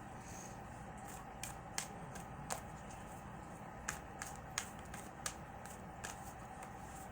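Tarot cards being shuffled and handled: a scattering of sharp, separate card snaps and clicks, about eight in all, over a steady low hum.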